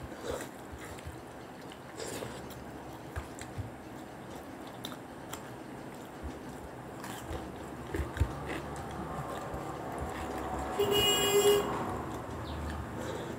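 Close-up eating sounds of two people eating rice and curry with their hands: chewing, lip smacks and small clicks of fingers on plates. About eleven seconds in, a vehicle horn toots once for under a second, the loudest sound.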